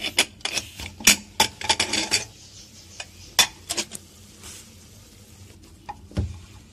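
Pressure cooker lid being unlatched and lifted off, a dense run of metal clicks and clanks, followed by a metal spoon knocking and scraping against the inside of the cooker as the cooked mince is stirred. There is a dull thud a little after six seconds.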